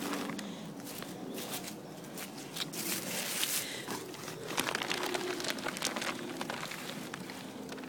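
Plastic tarp rustling and crinkling as it is handled, a run of irregular crackles with busier stretches about three and five seconds in.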